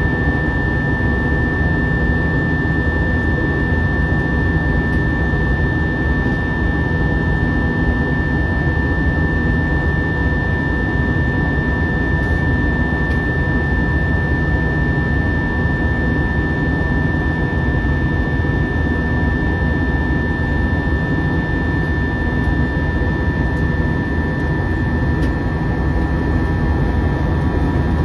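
Inside the cabin of an Airbus A320 climbing out: its two IAE V2527-A5 turbofans run steadily at climb thrust under a constant rumble of airflow, with a steady high whine over it.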